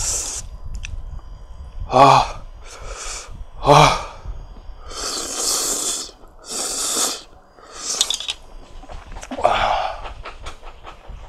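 A man slurping up fire noodles in two long noisy slurps, with short pained gasping cries before them and a strained groan near the end as the heat of the extra-spicy sauce hits.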